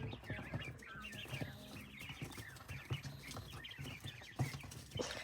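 A flock of quail making many short, faint chirps and peeps, with scattered sharp taps and clicks among them.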